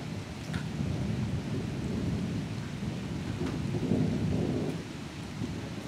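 Thunder rumbling in a long low roll that swells to its loudest about four seconds in, then eases, with rain falling.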